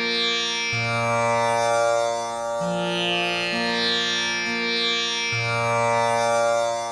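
Tanpura drone: its strings plucked one after another in a slow repeating cycle, each note ringing on with shimmering overtones under the next, giving a continuous drone on the tonic Sa.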